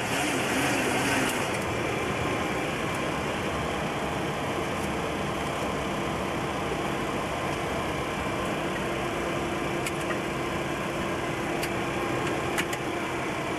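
Steady cockpit noise of a Boeing 727: the rear-mounted JT8D turbofan engines running at low taxi power under the rush of the cockpit air conditioning. A few faint clicks come in the last few seconds.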